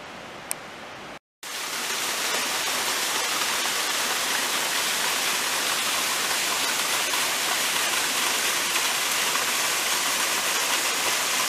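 Mountain torrent rushing: a steady, loud rush of water that cuts in suddenly about a second and a half in, after a brief quieter stretch.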